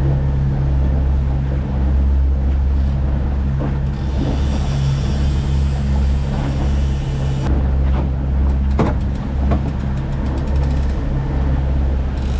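A boat's motor running steadily at trolling speed, a low, even hum with wash from the wake. For a few seconds midway there is a higher-pitched buzz, and then scattered ticks and a single knock.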